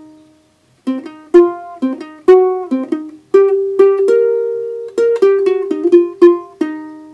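Music: a melody of single plucked-string notes, each struck sharply and ringing away. There is a short pause about a second in, and the last note fades out near the end.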